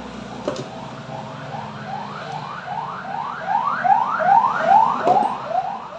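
Electronic siren giving a fast repeating rising whoop, about three sweeps a second. It starts about a second in, grows louder, peaks past the middle and fades near the end.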